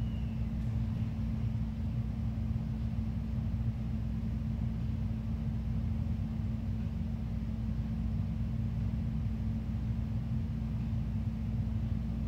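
Steady low mechanical hum with one constant low tone, the background drone of the building's machinery.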